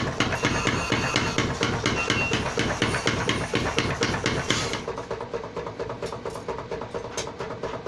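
Background music with a fast, steady percussive beat.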